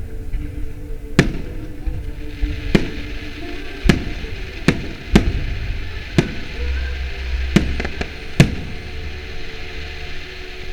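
Fireworks display: shells bursting in about eight sharp bangs at irregular intervals, over a hiss of crackling and with music playing in the background.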